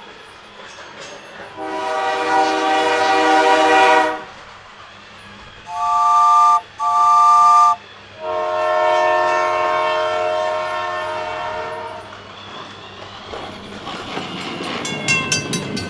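Battery-powered toy train's electronic horn sound: a long horn blast, two short toots, then another long blast that fades away. Quick clicking follows near the end.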